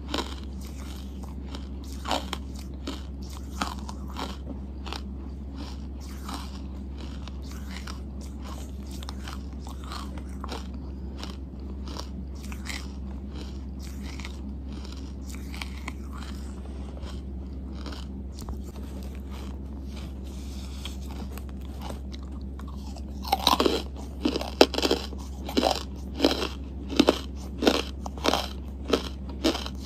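Charcoal being chewed: scattered crisp crunches at first, then, about three-quarters of the way in, a fast run of louder crunches, two or three a second.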